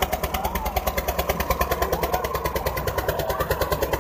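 Old Eicher tractor's diesel engine labouring under heavy load in a tug-of-war pull, a steady rapid chugging of about eight beats a second.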